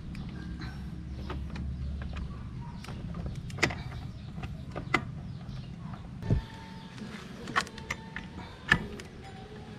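Cordless impact wrench on the clutch nut of a Yamaha NMAX scooter's belt drive, its motor whirring low and steady for about two seconds. Then come scattered metallic clicks and knocks, five or so, as the clutch bell and tool are handled.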